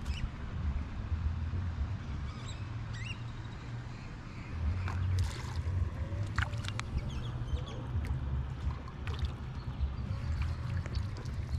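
Water splashing and sloshing as a rubber-mesh landing net is swept and dipped through shallow pond water after a hooked trout, with scattered sharp splashes and knocks that get busier from about five seconds in. A constant low rumble runs underneath.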